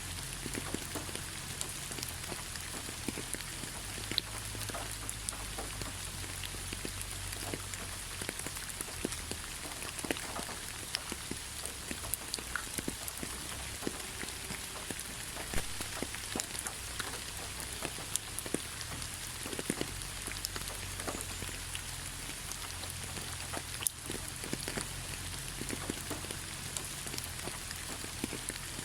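Steady rain falling on a surface, with many separate drops ticking and pattering through a continuous hiss.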